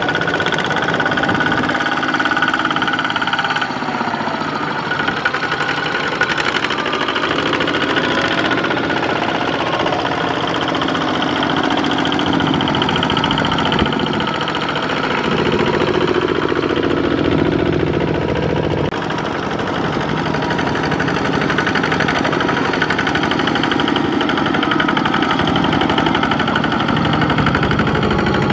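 Two-wheel walking tractors' single-cylinder diesel engines chugging under load as they haul trailers of rice sacks through deep mud, the nearest tractor loudest with others running behind it. The sound shifts abruptly about 4 and 19 seconds in.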